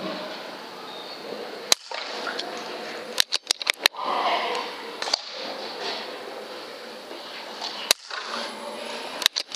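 Sharp clicks over a steady hiss: a single click about two seconds in, a quick run of half a dozen around three to four seconds, then single clicks later and a few more near the end.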